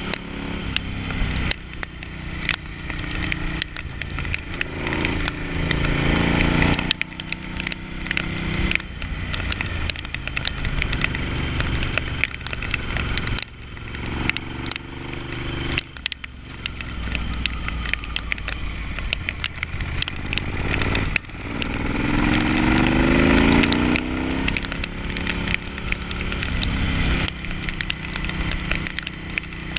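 Ducati Hypermotard's L-twin engine under way on the road. It rises in pitch twice as the rider opens the throttle, at about five and twenty-two seconds in, and drops back several times as he eases off or shifts. Wind noise and frequent short crackles run through it.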